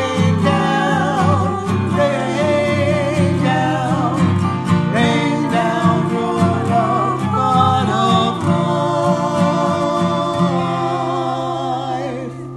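Church contemporary choir singing with guitar accompaniment. About ten seconds in they settle onto a long held final chord, which begins to fade near the end.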